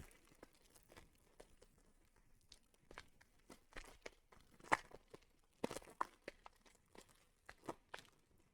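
Trading-card pack wrapper being torn open and cards handled: faint crinkling and scattered small clicks, with a few sharper crackles around the middle.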